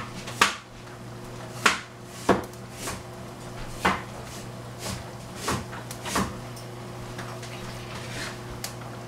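Kitchen clatter: irregular knocks and clinks of cookware, utensils and drawers or cupboard doors being handled, over a steady low hum.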